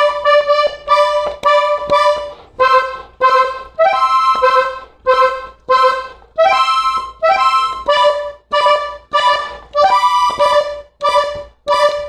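Diatonic button accordion playing a vallenato melody in short, separate notes and chords, about two a second with brief gaps between them.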